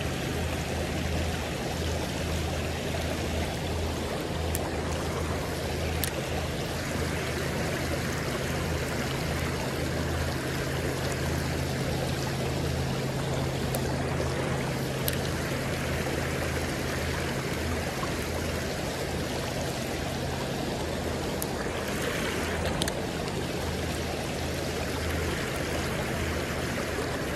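Creek water running over a shallow, stony riffle: a steady rush.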